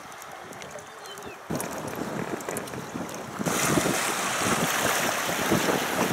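Wind blowing across the microphone over choppy river water, with waves splashing around a small inflatable boat. The noise gets louder in two sudden steps, about a second and a half in and again around three and a half seconds in.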